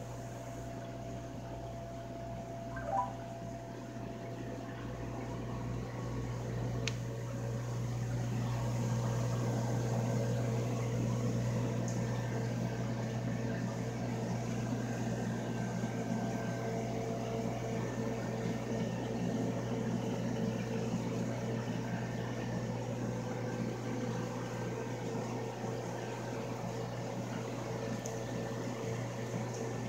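Steady hum of aquarium pumps and filters with circulating water, and a short click about three seconds in.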